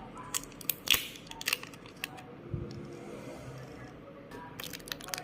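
Sharp clicks and taps of small tools and plastic or metal parts during hand disassembly of a Vivo V17 smartphone, several in the first two seconds and a cluster near the end, with a dull thump about halfway through.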